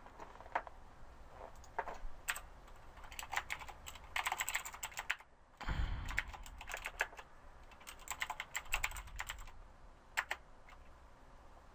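Typing on a computer keyboard in irregular bursts of quick key clicks with short pauses, and a soft thump about halfway through.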